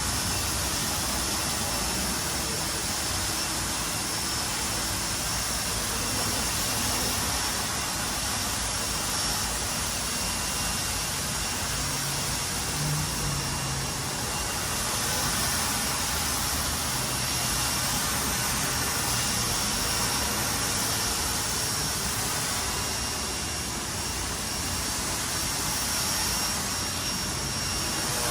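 Ryobi 2000 PSI electric pressure washer running, its water jet spraying with a steady loud hiss and a faint high whine.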